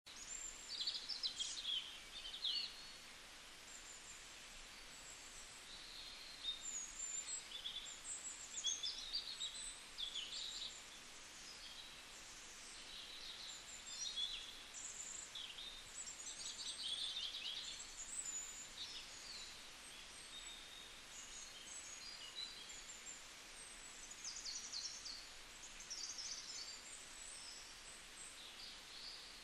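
Small birds chirping and twittering in quick, high-pitched calls that come and go, over a faint steady hiss of outdoor background noise.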